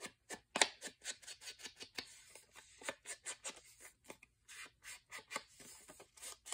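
Ink blending tool rubbed and dabbed over the edges of a paper pocket: a quick run of short scratchy strokes, several a second, with paper rustling between them.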